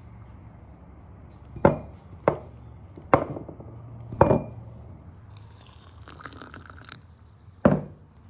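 Five sharp knocks of a small clay pot and a cut-crystal glass being handled on a wooden table, each with a short ringing tail. A soft hiss comes between the fourth and fifth knocks.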